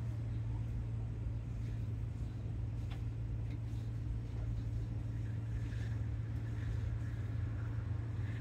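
A steady low hum, with a few faint soft taps as pizza dough is laid on a floured board and pressed out by hand.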